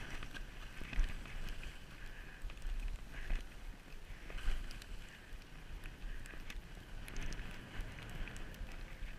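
Skis sliding and scraping over soft snow, swelling in short swishes every second or two, with wind rumbling steadily on the action camera's microphone.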